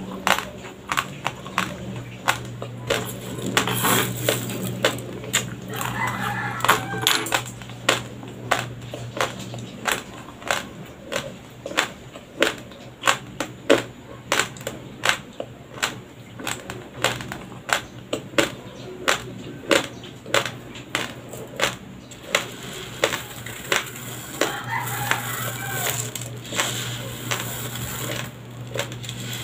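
Dry, uncooked Doña Elena white rice crunched between the teeth close to a clip-on microphone, sharp cracks about twice a second. Near the end, dry rice grains rustle as a handful is scooped from the pile, over a faint steady low hum.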